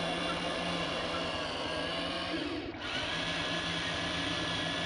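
Small electric motor whining steadily. It drops out briefly a little past halfway, then starts again at a slightly higher pitch.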